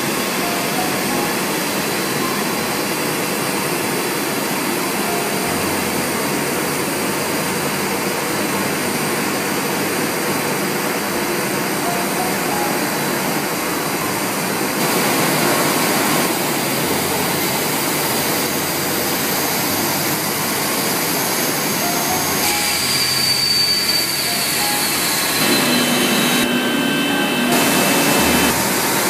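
Industrial thermal laminating machine running, its rollers feeding laminating film: a loud, steady machine noise that grows a little louder about halfway through.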